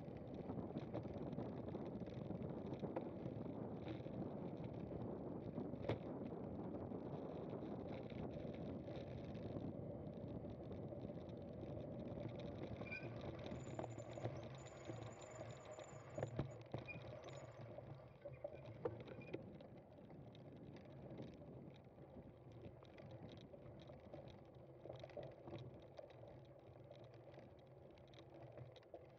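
A cyclocross bike being ridden over rough ground: a steady rumble of tyres and riding noise with scattered knocks and rattles, easing off about two-thirds of the way through. A faint high tone sounds for a few seconds in the middle.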